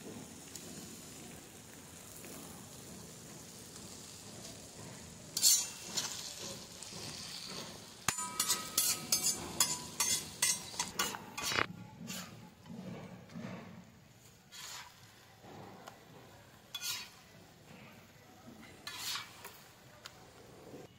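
Food sizzling in a cooking pot while a metal spoon stirs it. After a few seconds of steady sizzling, the spoon begins to scrape and clink against the pot many times, with a burst of quick strokes a little past the middle.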